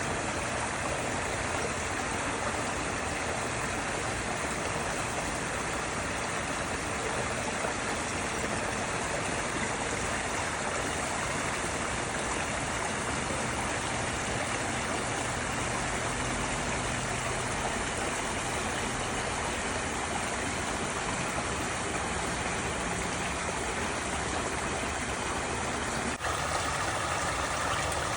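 Stream water flowing and rushing steadily. Near the end the sound changes abruptly to a slightly different water texture.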